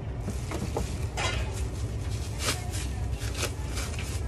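Plastic bag rustling and crinkling in the hands as a celery stalk is pulled out of it, with a few light knocks, over a steady low hum.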